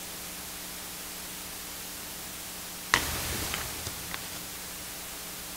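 Steady hiss with a faint low hum under it; about three seconds in, one sharp knock, followed by a few softer clicks and rustles over the next second.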